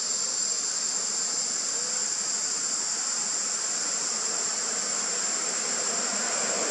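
Forest insects making a steady, high-pitched drone without a break.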